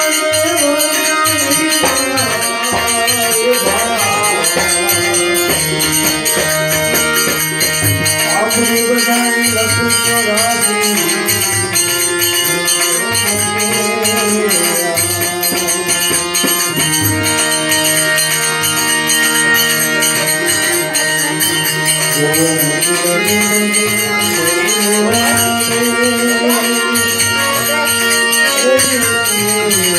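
Gujarati devotional bhajan: a man singing to a harmonium, its reeds holding long steady tones under his voice. Small hand cymbals keep a steady jingling beat.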